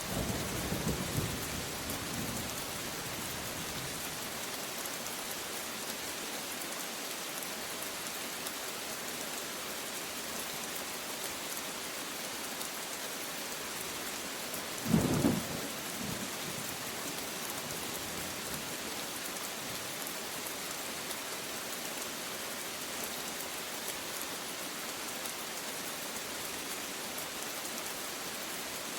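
Steady rain falling, with a low rumble of thunder at the start that fades within a couple of seconds. About halfway through comes one short, loud clap of thunder lasting about a second.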